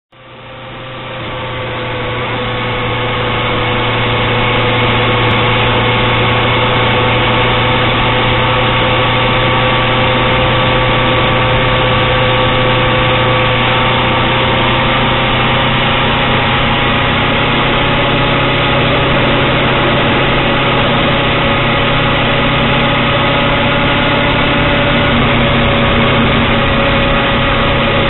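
Car cabin noise while driving: a steady engine and road hum with a few faint steady tones that drift slightly in pitch. It fades in over the first few seconds, then holds at an even level.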